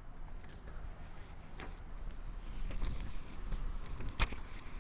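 Quiet room tone with a low steady hum and a few soft clicks, the sharpest one about four seconds in.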